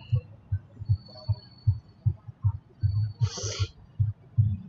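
Deep bass thumps in a steady beat, about two or three a second, with faint high tones and a short hiss about three seconds in.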